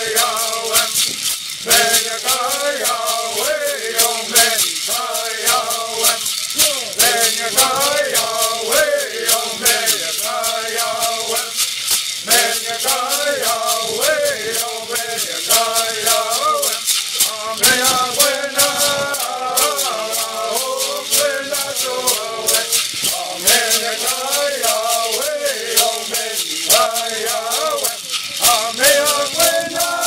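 Native American bird song: men's voices singing to the steady shaking of gourd rattles.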